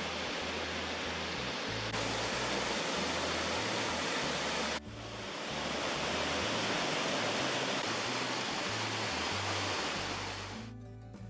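Rushing water of the Triberg waterfalls, a dense steady noise, with a music bass line underneath. The water sound breaks off abruptly twice and fades away near the end, leaving the music.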